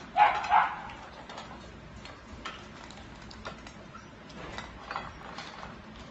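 Dogs eating from metal food bowls: scattered small clicks and clinks against the bowls, with two louder clanks just after the start.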